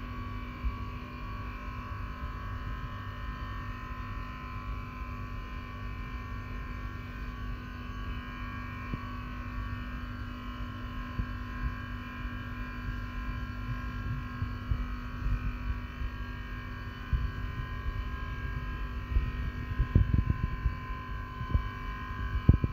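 A steady hum of several held tones, over a low uneven rumble that grows louder, with a few knocks, near the end.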